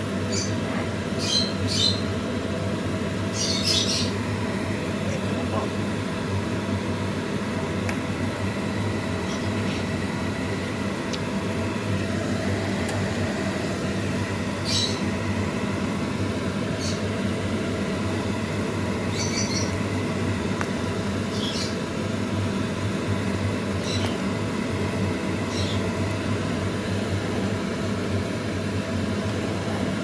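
Pot of chicken sotanghon soup boiling, with a steady mechanical hum underneath and a few short high-pitched blips scattered throughout.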